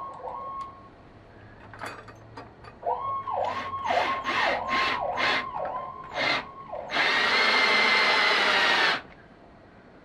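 Cordless drill with a quarter-inch socket driving screws into a metal window-blind bracket: a series of short trigger bursts, then a steady run of about two seconds near the end, the loudest sound. A siren-like wail sweeps up and down repeatedly in the background during the first two-thirds.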